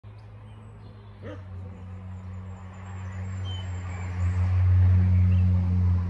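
A steady low hum that grows louder about four seconds in, with birds chirping faintly over it.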